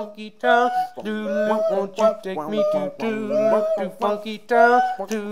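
A voice singing in phrases of held, wavering notes, with short breaks between them.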